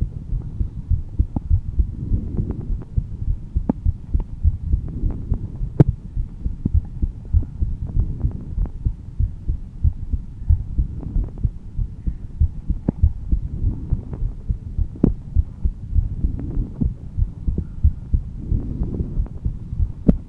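A woman's heartbeat, close up: a steady, slightly calm run of low thumps.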